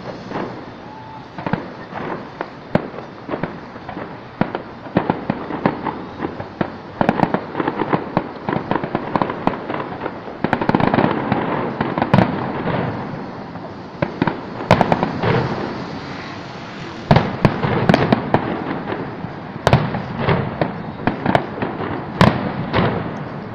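Aerial fireworks bursting one after another: a steady stream of sharp cracks and bangs, thickening into a dense crackle about halfway through.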